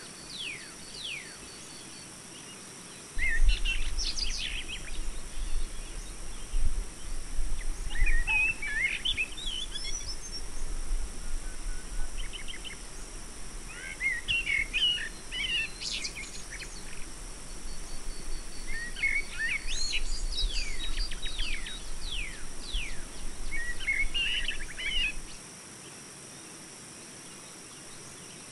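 Birds chirping and calling in short clusters every few seconds. A loud low rumble starts suddenly about three seconds in and cuts off near the end.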